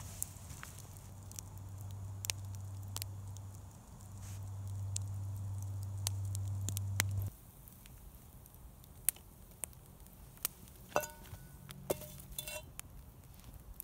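Wood campfire crackling with scattered sharp pops. A steady low rumble runs under the first half and stops abruptly about seven seconds in, and two brief squeaks come near the end.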